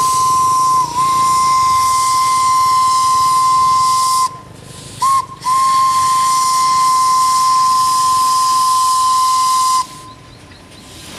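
Orenstein & Koppel narrow-gauge steam locomotive's whistle blowing one steady note with a hiss of steam. It breaks off about four seconds in, gives a short toot a second later, then blows another long blast that cuts off near the end.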